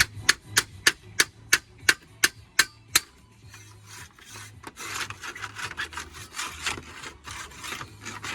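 A slate remover being worked on the fixing nails under a roof slate: about nine sharp knocks, roughly three a second. After a short pause comes a rasping scrape of slate rubbing on slate.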